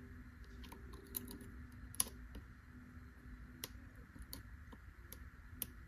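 Small irregular metal clicks and ticks of a lock pick working the pin stack of a Gege euro cylinder lock held under tension, with the sharpest click about two seconds in.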